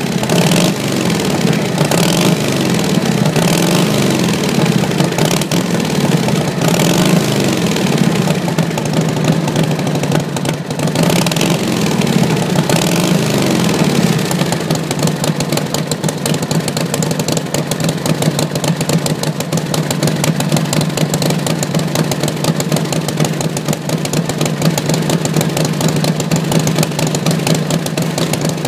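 1939 Harley-Davidson Knucklehead overhead-valve V-twin running just after being started on freshly replaced valves. For about the first half it is revved up and down; then it settles into a steady idle.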